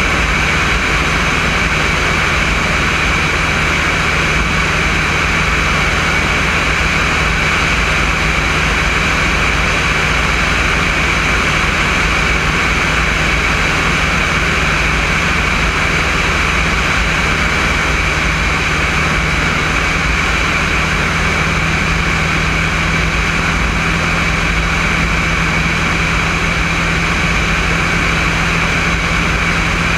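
Alpi Pioneer 200 light aircraft in cruise flight: its propeller engine runs with a steady drone under a rush of airflow over the externally mounted microphone.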